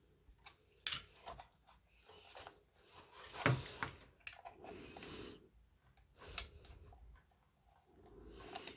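Hands and a small flat screwdriver working on a TV power-supply circuit board: a few sharp clicks and taps, the loudest about three and a half seconds in, with soft scraping between them.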